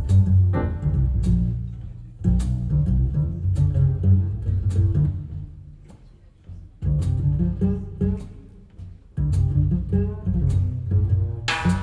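Recorded music played back over Avalon Acoustics hi-fi loudspeakers, led by a deep plucked double bass line. The music thins out briefly twice in the middle before the full bass returns.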